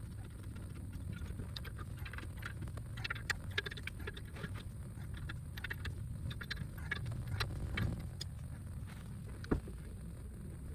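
Scattered light clicks and scrapes of metal brake parts and tools being handled during a brake pad change, over a steady low rumble, with one sharper click about nine and a half seconds in.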